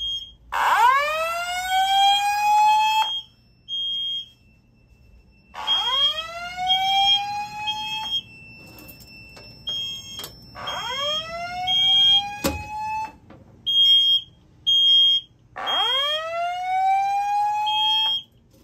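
Fire alarm voice-evacuation speaker sounding a slow whoop tone: a rising sweep about two and a half seconds long, repeated four times about five seconds apart. A Simplex GX90 mini horn beeps a high-pitched tone on and off between the whoops. There is one sharp knock about two-thirds of the way through.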